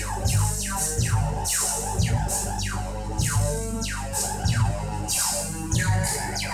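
Electronic music from a patched modular synthesizer with an x0xheart bass synth and Korg Monotribe drums: a looping sequence of falling, zapping sweeps, two to three a second, over repeating low bass notes.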